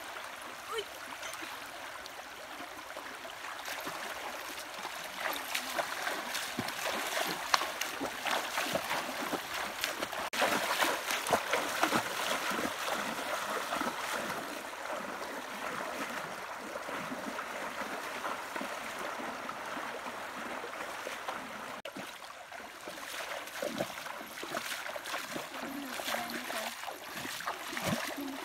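Shallow river water rushing over stones, with splashing from legs wading through it. The splashing comes in quick, uneven strokes and is loudest about ten to thirteen seconds in.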